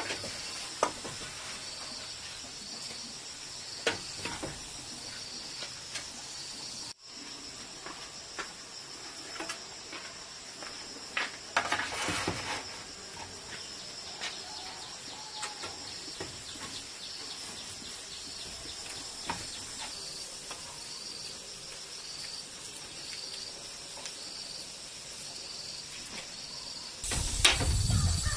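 Insects chirping steadily in a high-pitched, pulsing chorus, with a few scattered clicks and knocks. A louder low rumble comes in near the end.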